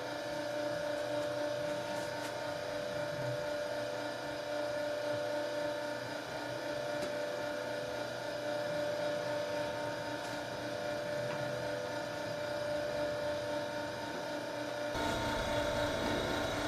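Steady hum of a homemade wooden double-capstan torque amplifier running, its motor-driven metal capstan drums turning continuously under rope wraps. Near the end the sound grows a little louder, with more low rumble.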